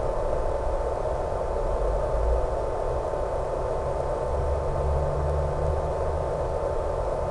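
Steady static hiss with a constant high tone running through it, plus an uneven low rumble, as heard over the audio channel of an analog 1.3 GHz FPV video link.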